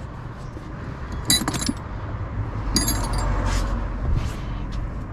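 Metal hand tools clinking and rattling against each other in two short clusters, about a second and a half in and again near three seconds, as an 11 mm wrench or socket is picked out from among the tools.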